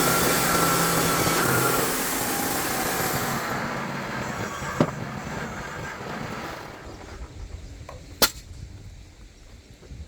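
Sawmill running through a cut, its steady mechanical noise fading over several seconds until only a faint rumble is left. Two sharp knocks come about five and eight seconds in.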